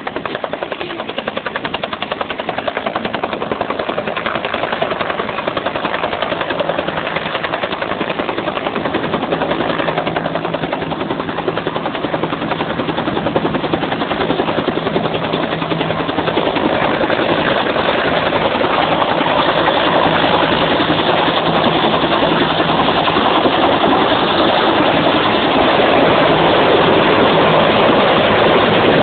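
Bell UH-1 'Huey' helicopter approaching, its two-bladed main rotor beating fast and evenly, growing steadily louder as it comes closer.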